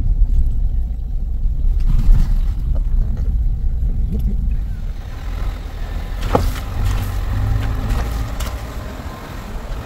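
A vehicle driving along a rough, potholed road: steady low rumble of engine and road noise, with a few knocks as it goes over bumps, the clearest about six seconds in.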